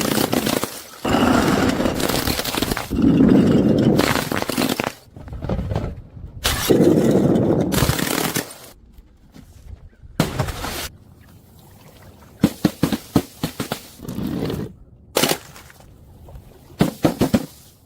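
Objects being crushed and broken: several long, dense bursts of crunching, then quieter stretches broken by clusters of sharp cracks and snaps near the end.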